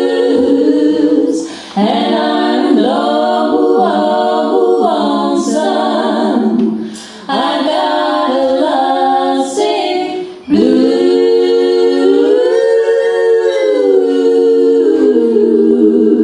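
Female vocal group singing a country blues song a cappella in close harmony, several voices together in three phrases. The last phrase, from about ten and a half seconds in, is a long held chord that bends in pitch before the song ends.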